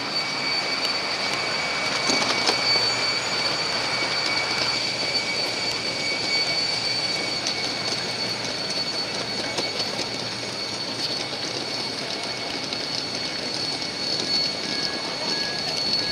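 Steady high-pitched whine of an aircraft turbine, two high tones held over a constant rushing noise, heard from aircraft standing on the apron.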